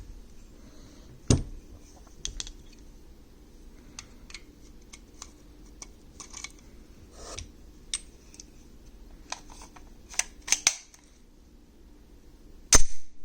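Kahr P45 pistol being handled, with scattered metallic clicks and clacks of magazine and slide. There is a sharp loud clack about a second in, a quick run of clicks later on, and the loudest clack near the end.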